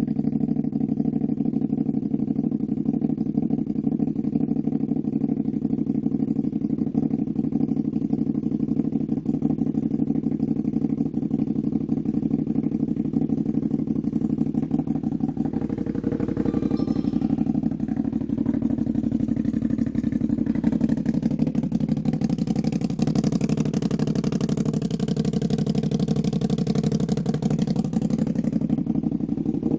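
Can-Am Maverick side-by-side's engine idling steadily after being started in sport mode on a freshly flashed ECU tune. A hiss joins in over the second half.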